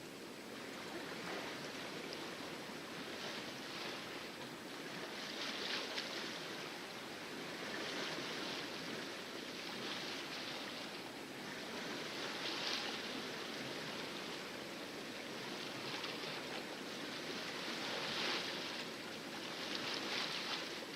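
Water splashing and rushing along the hull of a sailboat under sail in calm seas, swelling and easing every two seconds or so.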